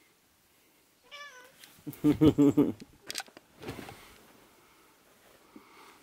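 Domestic cat meowing twice from under a blanket: a short wavering meow about a second in, then a lower, pulsing call a moment later. Brief rustles of the bedding follow.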